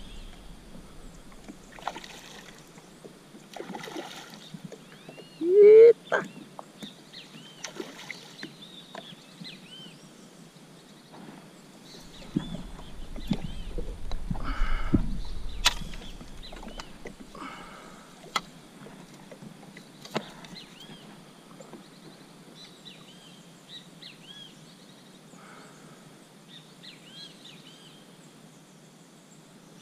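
Water sloshing and splashing around a kayak in short bursts, with small birds chirping repeatedly. About six seconds in there is one short, loud rising squeal.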